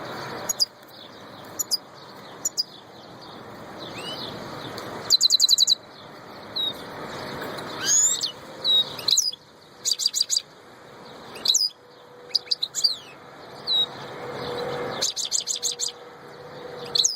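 European goldfinch singing: a varied song of quick twittering notes, several rapid trills and sliding whistled notes, over a steady background hiss.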